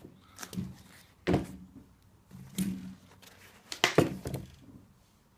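Handling noises from unboxing a pair of leather trainers: a few short knocks and rustles of the shoes and their cardboard box, the two loudest about a second in and about four seconds in.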